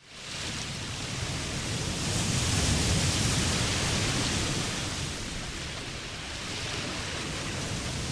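Floodwater rushing: a steady wash of noise that swells a couple of seconds in and eases off again.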